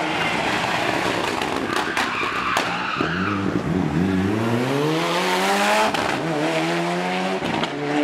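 Mitsubishi Lancer Evolution rally car's turbocharged four-cylinder engine at full throttle through a tight corner, its tyres briefly squealing in the slide. From about three seconds in the engine note climbs steadily as the car accelerates away, breaks for a gear change about six seconds in, and climbs again.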